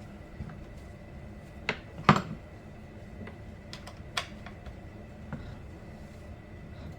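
Irregular light clicks and knocks of hands working on a chainsaw's parts while cleaning it, with a sharper knock about two seconds in, over a faint steady high tone.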